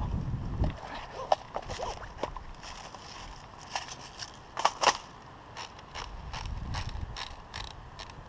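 Airsoft rifle making a series of sharp mechanical clicks, scattered at first and then about three a second in the second half.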